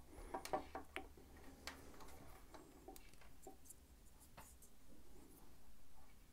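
Faint, scattered clicks and light taps of small plastic parts being handled: a Shimano Di2 electric wire and its plug connector being worked into place. The clicks come thickest in the first couple of seconds, then only now and then.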